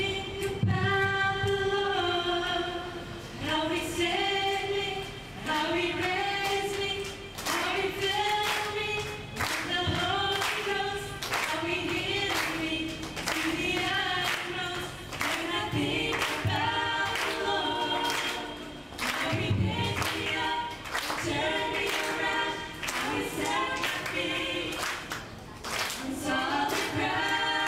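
Women's voices singing a worship song together into microphones, with each note held for a second or two.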